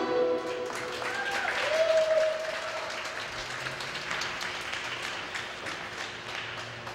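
A held final note of the skating music dies away just after the start. Then a small audience claps, with a brief gliding call from someone in the crowd about a second in, and the applause thins out and fades.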